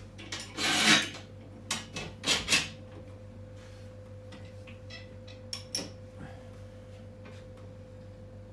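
Steel hooks and a metal gambrel clanking and scraping as a lamb carcass is hung on a hanging scale's hook. The loudest is a scrape about a second in, followed by a few sharp metal clinks, then fainter clicks later. A steady hum runs underneath.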